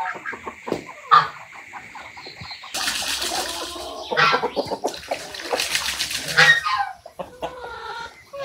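Chickens clucking, a string of short calls with a few louder ones.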